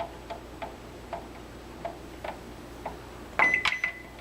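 Microwave oven control panel being keyed: faint clicking taps, then a high electronic beep about three and a half seconds in.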